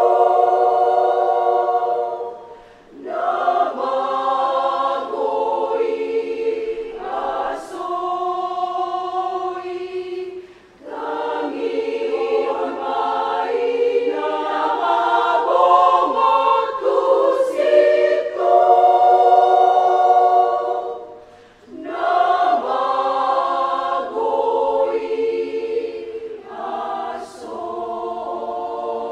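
Women's choir singing in several parts, in long sustained phrases with brief breaks between them, three times.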